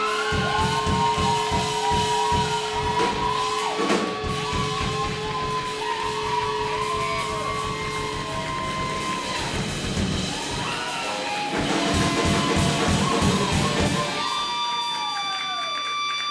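Live rock band playing loud, with electric guitar and a drum kit. About fourteen seconds in the drums stop and held guitar tones ring on as the song ends.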